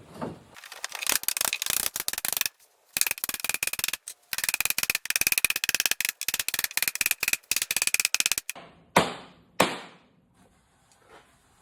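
Rapid ratcheting clicks in long runs, with a short break, as a ring on a bourbon barrel is tightened down, followed by two sharp knocks about half a second apart.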